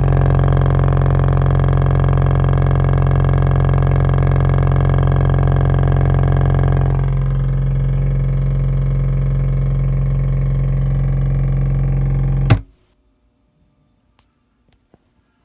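Mesa Boogie Dual Rectifier two-channel tube guitar amp rumbling: a loud, steady low drone with a hum-like pitch, shifting slightly about seven seconds in. It cuts off suddenly with a click near the end. The rumble is a fault that new preamp tubes did not cure.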